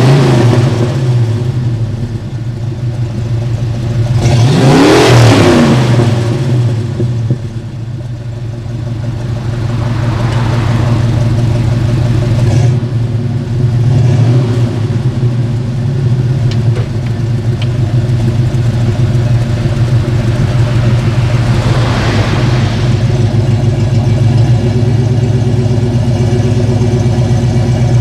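1985 Ford Mustang's carbureted 5-litre V8 through Flowmaster Super 44 mufflers, with the catalytic converter cut out and a patch pipe in its place, idling steadily and being revved. One rev falls away at the start, a big rev climbs and drops about five seconds in, two smaller blips follow, and another rev comes about three-quarters of the way through.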